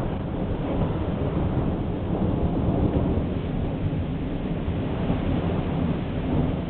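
Distant thunder rumbling steadily, a continuous low roll with no sharp cracks.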